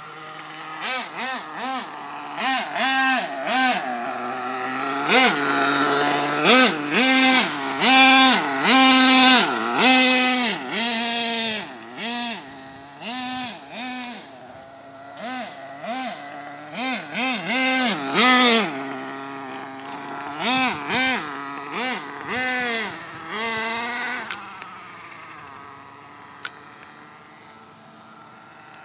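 OFNA radio-controlled truck's small nitro engine, revved up and let back down again and again in quick throttle bursts as it is driven, its pitch climbing and falling with each burst. It grows fainter in the last few seconds.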